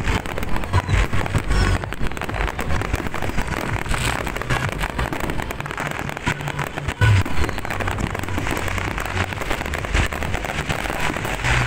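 Fireworks display: a dense, continuous run of bangs and crackling from many shells bursting at once, with one especially loud boom about seven seconds in.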